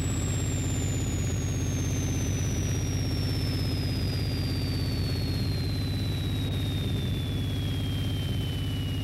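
Electronic soundtrack: a steady low buzzing drone with one thin, high sine tone slowly falling in pitch.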